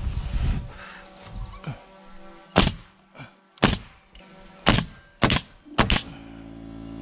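DeWalt pneumatic coil nailer firing nails into wooden framing: about six sharp shots roughly a second apart in the second half, the last two close together, with lighter knocks of handling near the start.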